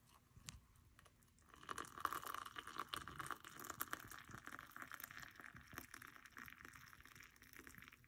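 Water poured from a stainless steel Cuisinart JK-17P1 electric kettle splashing into a ceramic mug over a tea bag. The pour becomes audible about a second and a half in, stays steady, and stops near the end.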